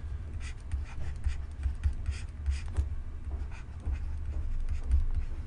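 Faint scratchy strokes of a pen writing an equation, under a steady low hum.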